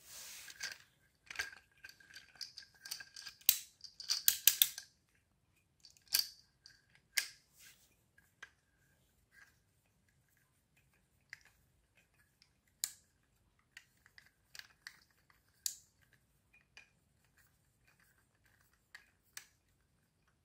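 Plastic clicking of a 3D-printed wind-up toy car being handled: a fast run of clicks in the first five seconds, then scattered single clicks and ticks.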